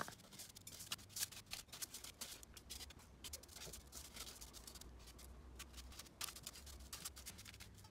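Faint, irregular crackling and rustling of panko breadcrumbs and aluminium foil as food pieces are rolled and pressed in the crumbs.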